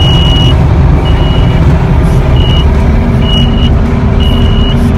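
Reversing alarm on a piece of cotton harvesting machinery beeping about once a second, five beeps, over the loud rumble of its engine.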